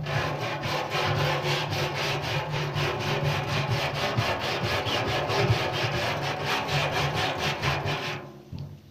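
Hand wire brush scrubbing rust off the steel tray of a wheelbarrow in rapid back-and-forth strokes, about five a second, fading out near the end.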